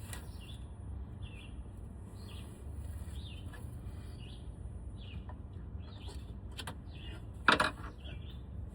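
Small birds chirping repeatedly in short separate calls, over a low steady rumble. Near the end comes a single loud metal clank from a pry bar working on the truck's steering shaft.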